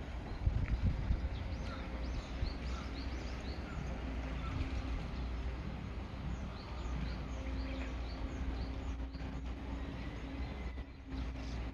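Outdoor ambience: small birds chirping again and again over a steady low rumble, with a low steady hum coming in about seven seconds in.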